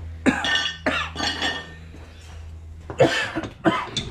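A person coughing in several short bursts, over a low steady hum that stops about three seconds in.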